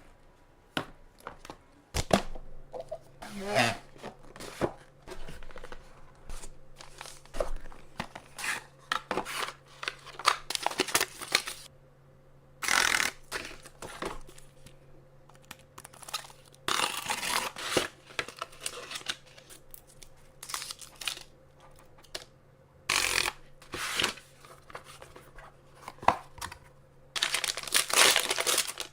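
Packaging being torn open and handled while a laptop is unboxed: irregular bursts of ripping and crinkling, with clicks and knocks between them. A faint steady hum starts about two seconds in.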